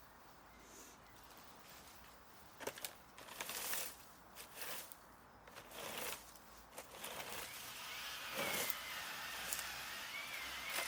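Rustling, crackling and snapping of branches and dry leaves being handled, in irregular bursts that begin a couple of seconds in and grow busier toward the end.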